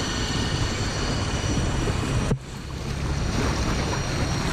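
Small outboard motor driving an inflatable dinghy at speed, with the wake splashing and wind buffeting the microphone. About two seconds in the sound drops suddenly, then water and wind noise build back up.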